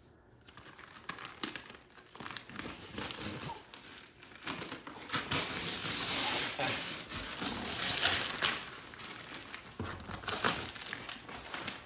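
Christmas wrapping paper being torn and crumpled off a large gift box: a quiet start, then dense crinkling and rustling that builds to its loudest midway and eases off near the end.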